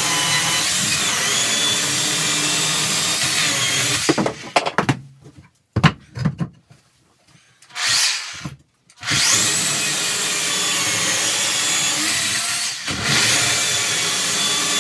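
Makita electric chainsaw running and cutting into the end of a log to trim it, a steady whine. It lets off about four seconds in, gives a short burst in the middle, then cuts steadily again from about nine seconds on.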